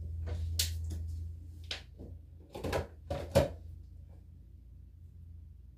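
A closet door being opened and things on its shelves being handled, with a few sharp clicks and knocks spread over the first three and a half seconds, over a low steady hum.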